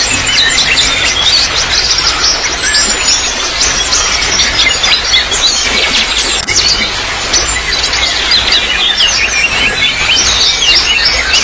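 Water trickling steadily, with many small birds chirping and twittering over it, and a high whistle slurring downward every few seconds.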